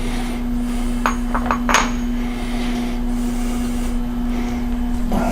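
A few sharp metallic clinks and knocks in quick succession between one and two seconds in, the last with a short high ring, over the steady hum of a CNC milling machine.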